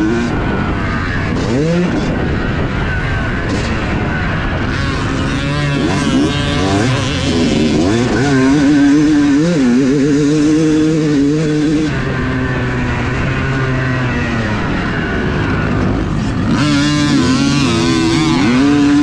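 Yamaha YZ250 two-stroke motocross bike's single-cylinder engine, heard up close from the rider's position, revving up and dropping back again and again as it is ridden hard over the dirt track.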